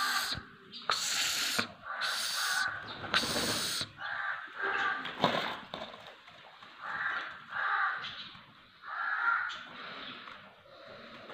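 Caged black francolin calling in a series of short notes, each about half a second long. The loudest come in the first four seconds, then softer notes follow every second or two.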